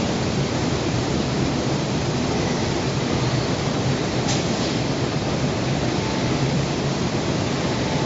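Steady rushing air-and-machinery noise of a robotic paint spraying booth, with a constant low hum and a brief hiss about four seconds in.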